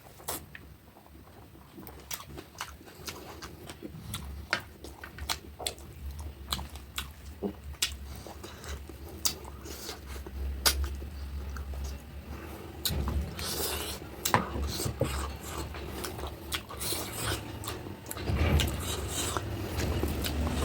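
Close-up chewing and eating of rohu fish curry with rice: irregular wet mouth clicks and smacks, busier and louder in the second half, over a low steady hum.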